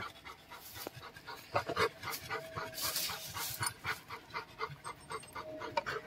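Dog panting rapidly and evenly, about four to five breaths a second.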